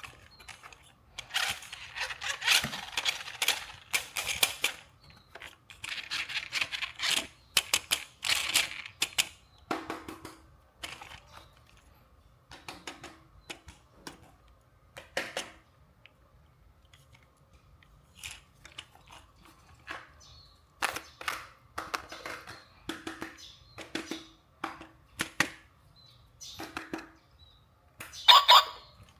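Unboxing handling noises: bursts of rustling and crinkling packaging broken up by irregular clicks and taps on plastic.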